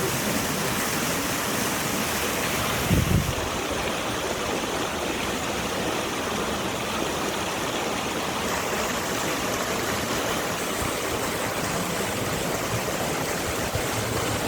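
Waterfall pouring steadily into water, an even rushing noise, with one brief low thump about three seconds in.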